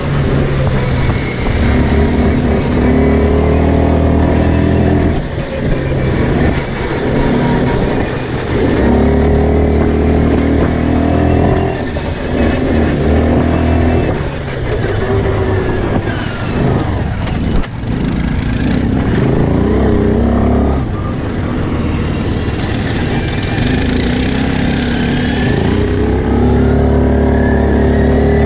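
Quad bike engine running under way, its note rising and falling as the throttle is opened and eased off several times, with wind and track noise.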